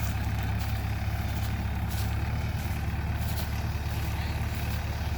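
JCB 3DX backhoe loader's diesel engine running steadily with a low, even drone.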